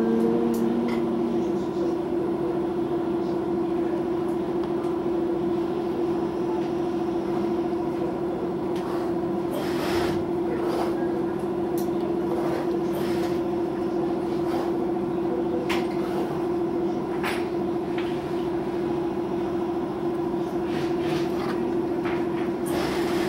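Steady electric machine hum with a fixed low tone that holds unchanged throughout, with a few brief scrapes and rustles of the synthetic sheets and pen on the table now and then.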